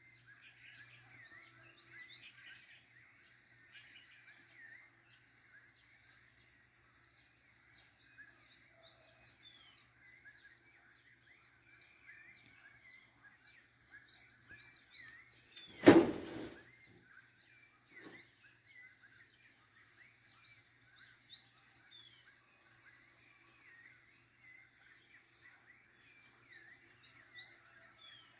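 Songbirds at dawn singing bursts of quick, high chirping phrases every few seconds over a steady chorus of more distant calls. A single loud thump about two-thirds of the way through, with a fainter knock shortly after.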